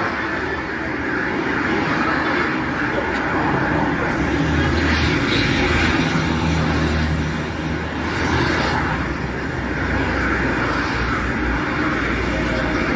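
Road traffic going by: a steady roar of engines and tyres, with a low engine hum from a large vehicle swelling from about four seconds in and easing after about eight.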